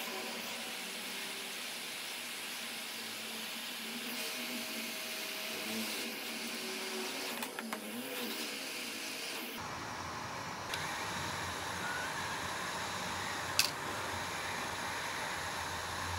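Hot air rework gun blowing steadily, a fan-driven rush of air, as it heats a circuit board to desolder a part. A single sharp click sounds about three-quarters of the way through.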